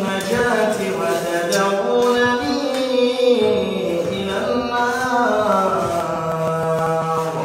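A man's voice reciting the Quran in a melodic, drawn-out chant. The pitch bends up and down through long ornamented phrases and settles on a long held note in the second half.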